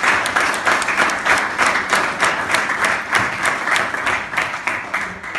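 Applause from a room of people: many hands clapping in a dense, steady patter that dies away near the end.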